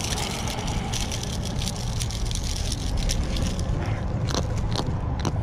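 Steady low rumble with scattered light clicks and ticks, more of them near the end, from handling a freshly landed jack still hooked on a hard-bodied minnow lure.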